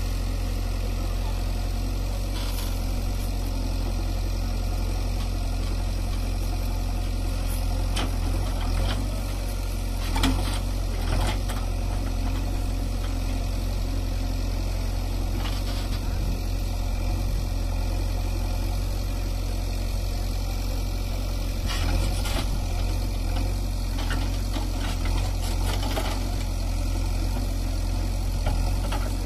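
Diesel engine of a JCB backhoe loader running steadily at low revs while its arm works against a tipped tractor trolley, with a few short knocks scattered through.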